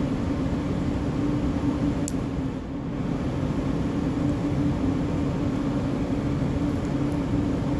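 Steady mechanical hum with a constant low drone, and a faint small click about two seconds in.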